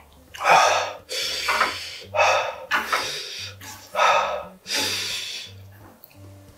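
A person slurping instant ramen noodles off a ladle: about four loud sucking draws, each around half a second long, with smaller ones between.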